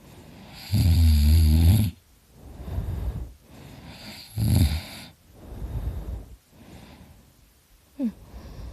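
A drunk man snoring really loud: a long snore on the in-breath about a second in and another about four and a half seconds in, with softer breathing sounds between them and a short snort near the end.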